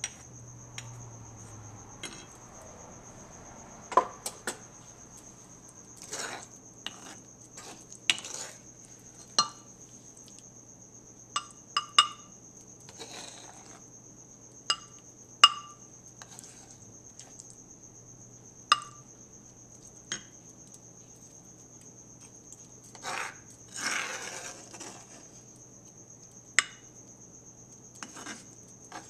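Wooden spoon scraping and knocking against a stone molcajete and a ceramic serving dish as thick mashed guacamole is scooped out. Sharp clinks that ring briefly come every second or two, with a longer scrape about 23 seconds in.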